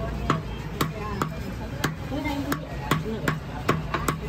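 Heavy cleaver chopping chicken through flesh and bone onto a wooden chopping block, in sharp, irregular chops about two or three a second.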